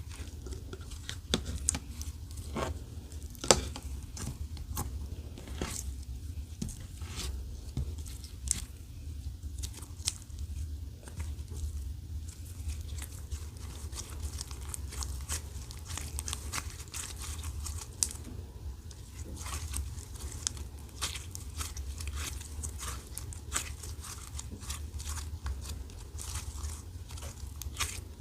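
Clear slime being squished and stretched by hand, giving an irregular run of small sticky clicks and pops over a low steady hum.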